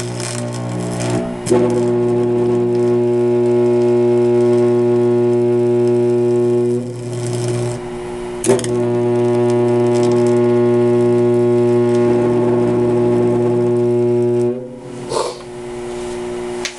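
Twin-carbon arc torch burning: a steady, loud electric buzz with a pitched drone. It sags for about a second around 7 s in, gives a sharp crack as it picks back up, and cuts off about 14.5 s in.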